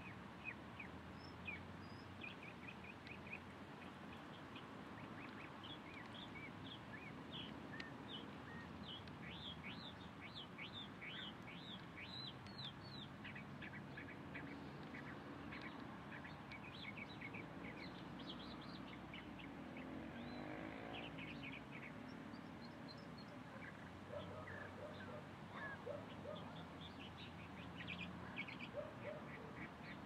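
Outdoor birdsong: several birds calling, with steady chatter of short, quick chirps and rapid series of notes, and some lower calls in the last few seconds.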